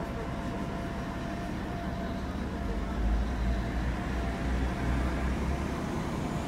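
Steady low rumble inside a KiHa 48 diesel railcar with its underfloor engine running. The rumble grows louder about three seconds in.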